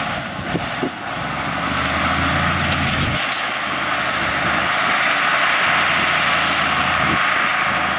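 Heavy diesel earthmoving machinery running: a low engine drone under a steady rushing noise that builds about a second in.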